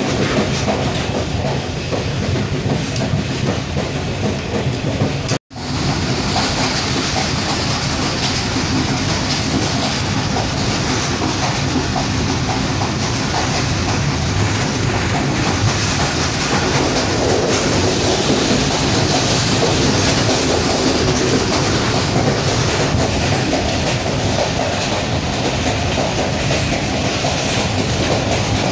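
Passenger train coach heard from inside while running at speed: steady noise of the wheels on the rails, with the sound dropping out for a split second about five seconds in.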